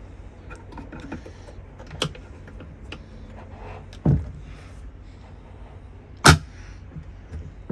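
Helm seat swivel base being turned by hand: a few sharp knocks and clicks, the loudest about six seconds in, over a steady low hum.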